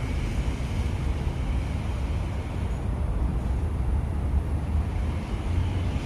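Steady low outdoor rumble with no distinct event in it.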